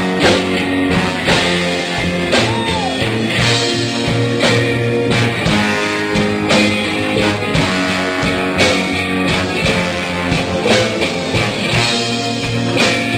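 A band playing an instrumental passage, guitar over a steady bass and drum beat, with no singing.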